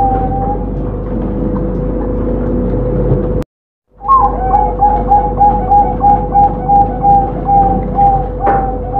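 Zebra dove (perkutut) cooing: a run of coos ends just after the start, then after a brief silent break a new song begins with a rising note and runs into a quick, even series of short staccato coos, about three a second, over a steady background hum.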